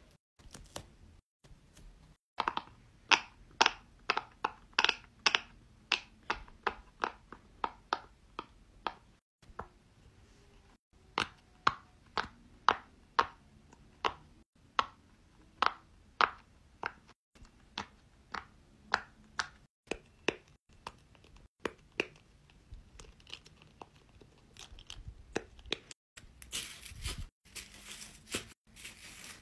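Rainbow silicone pop-it fidget toy having its bubbles pressed: a long run of sharp pops, about one or two a second. Near the end comes a denser rustling clatter from a plastic slinky.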